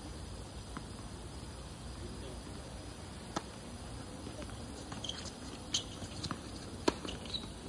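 Tennis rally on a hard court: a handful of sharp pops from racket strings striking the ball and the ball bouncing, the loudest near the end.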